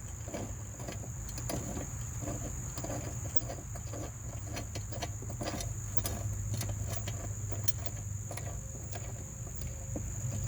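Steady high-pitched insect trilling over a low steady hum, with scattered light clicks and clinks of mower parts being handled.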